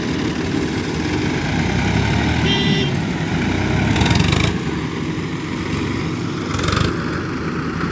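Sonalika tractor's diesel engine running steadily under load as it pulls a trailer across rough ground. A short high tone sounds about two and a half seconds in, and there are two brief hissing bursts, one about four seconds in and one near seven seconds.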